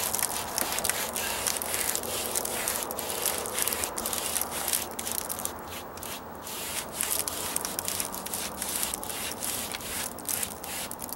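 Paintbrush dabbing and scrubbing Dryvit stucco patch material onto a rough stucco column: a run of irregular, scratchy brush strokes.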